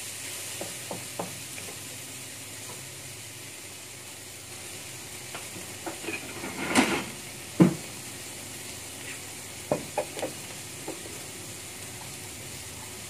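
Tomatoes sautéing in oil in a frying pan, a steady sizzle, with a few scattered knocks and clatters of kitchenware, the loudest a sharp knock about seven and a half seconds in.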